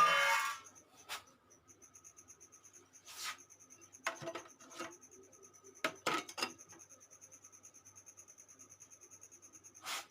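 A short pitched squeak right at the start, then a few scattered light knocks, clinks and rubbing sounds.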